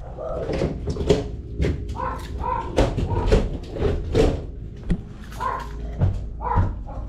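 A dog barking and whining in short calls, among several sharp knocks, over a steady low hum.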